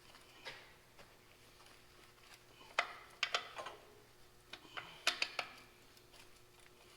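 Scattered light metallic clicks and clinks of a hand wrench working a stubborn bolt, a few spread out and a quick cluster about five seconds in, over a faint steady hum.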